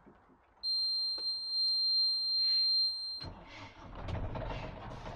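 Sailing yacht's engine-panel alarm buzzer sounding as a steady high beep for about two and a half seconds while the ignition is on, cutting off as the inboard engine cranks and starts. The engine then settles into a steady idle.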